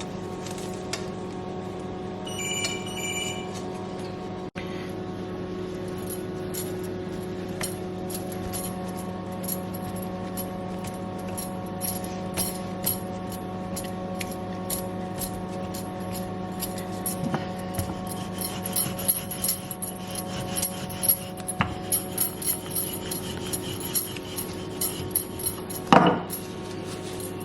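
Light clicks and taps of biscuit dough and utensils being handled, thicker in the second half, over a steady hum. A short two-tone beep sounds a few seconds in, and a brief louder sound comes near the end.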